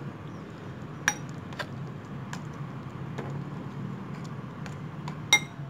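Metal spoon stirring thick flour batter in a ceramic bowl, with scraping and several sharp clinks against the bowl, the loudest and ringing near the end. A steady low hum runs underneath.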